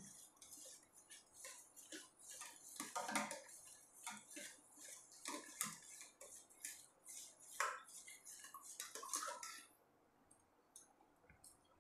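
A metal spoon stirring lemon water in a stainless steel saucepan, with irregular light clinks of spoon against pan and ice cubes. The clinking stops near the end.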